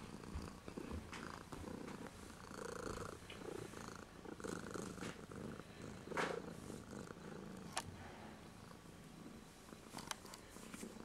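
Tabby-and-white kitten purring softly while being stroked, the purr swelling and fading with each breath. A few brief clicks sound from about halfway on.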